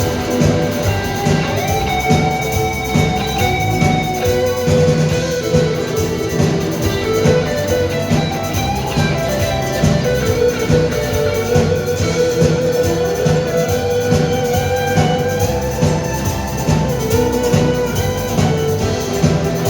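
Live band playing an instrumental passage: a steady beat under a long, held lead guitar melody.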